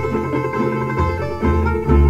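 Instrumental Croatian folk music played on plucked string instruments, with a moving bass line under the melody.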